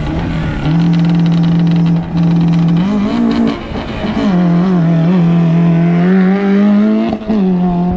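Off-road competition vehicle's engine revving hard. It holds a steady pitch, rises and drops about three seconds in, then climbs again, with a brief dip near the end.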